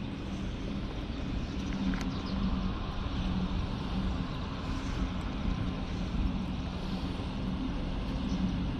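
Steady low drone of a running motor, with a wavering hum and a faint click about two seconds in.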